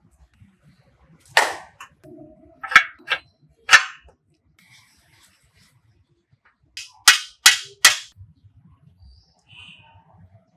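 A series of sharp knocks: three spaced about a second apart, then after a pause a quicker run of three.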